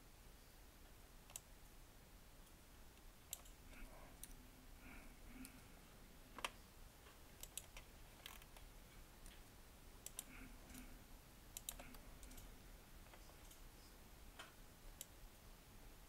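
Near silence with faint, irregular clicks of a computer mouse and keyboard, one slightly louder click about six and a half seconds in.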